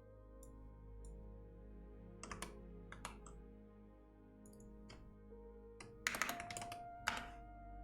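Computer keyboard keystrokes typed in scattered bursts, with a quick run of louder keystrokes about six seconds in, over soft ambient background music.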